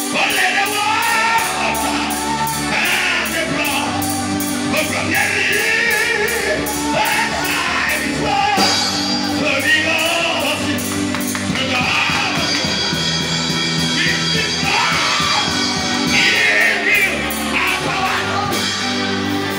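Live church praise music with a steady beat and bass, and a man singing through a microphone over it.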